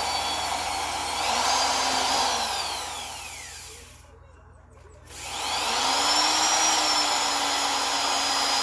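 Electric drill motor running in two bursts. The first whine is already going, climbs a little about a second in and winds down around three seconds in. After a short pause the second burst spins up about five seconds in and runs steadily.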